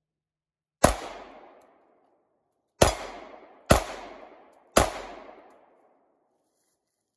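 Four shots from a Sig Sauer P365 XL 9mm pistol: one about a second in, then three more in quicker succession, each followed by about a second of echo off the woods.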